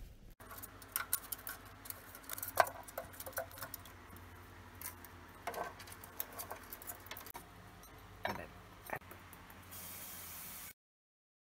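A cockatiel's feet and beak clicking and tapping on a plastic toy house, light scattered taps with one sharper click about two and a half seconds in. The sound cuts off abruptly shortly before the end.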